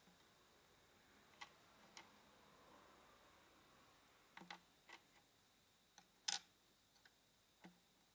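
Near silence broken by scattered faint, light clicks and taps of small plastic miniature toy pieces being handled and set down on a table, the loudest about six seconds in.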